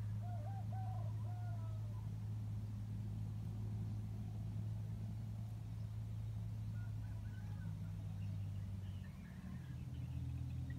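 A steady low engine hum that shifts in pitch about nine seconds in, with a few faint, short bird calls over it near the start and near the end.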